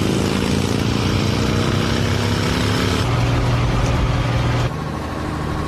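Motor vehicle engine running steadily, with a sudden change in its sound about three seconds in and again near the end.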